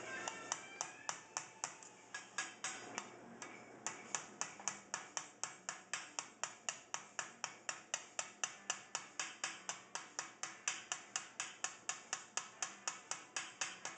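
Rapid light hammer taps on a sheet-metal acanthus leaf being shaped by repoussé, about four sharp ticks a second with a short break near the four-second mark.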